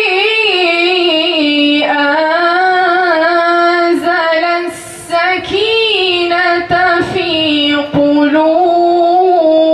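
A young woman's voice reciting the Quran in the melodic tajweed style through a microphone, drawing out long held notes with ornamented turns. There is a brief breath just before five seconds in.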